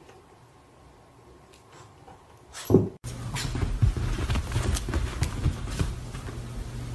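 A caique parrot scrambling and flapping on a couch: irregular soft thumps and scuffs over a steady low hum. Before that, the sound is fairly quiet with faint clicks, and there is one brief louder sound a little before three seconds in.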